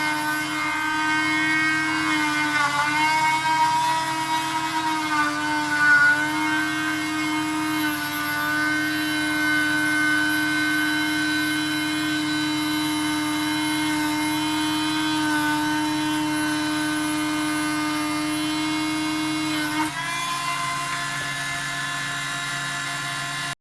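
Parkside rotary tool running with a small diamond core drill grinding into an agate pebble: a steady high whine. Its pitch sags briefly a few times in the first six seconds as the bit bites, shifts slightly about 20 seconds in, and cuts off suddenly at the end.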